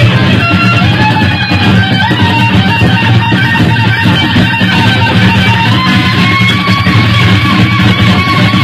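Electric guitar lead solo on a Stratocaster-style guitar in a rock style. Quick runs of notes give way to longer held notes later on, over a steady low accompaniment.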